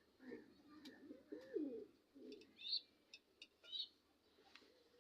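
Pigeons cooing quietly, a run of low, rising-and-falling coos in the first two seconds. A couple of short higher chirps and a few light clicks follow.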